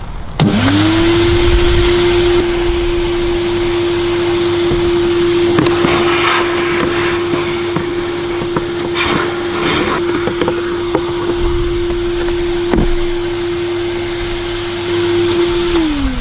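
Vacuum cleaner switched on about half a second in, its motor whining on one steady pitch with a rush of air and scattered clicks and rattles as it sucks dirt out of a car's engine air box, then switched off near the end, its pitch falling as it winds down.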